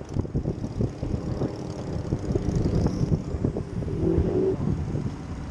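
Strong wind buffeting the microphone on an open boat: a continuous low, gusty rumble.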